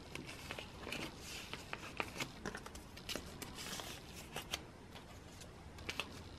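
Plastic binder sleeve pages and photocards being handled: soft crinkly rustling with scattered small clicks and taps.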